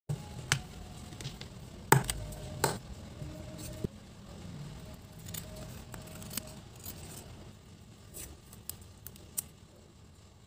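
Hands handling journaling stationery: scattered clicks and taps on a clear plastic mini ring binder, paper being moved, and tweezers working at a sticker. A few sharper clicks stand out in the first four seconds.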